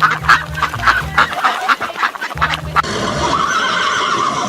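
Background music with farm-animal sound effects: a run of short sharp calls, then a steadier call near the end.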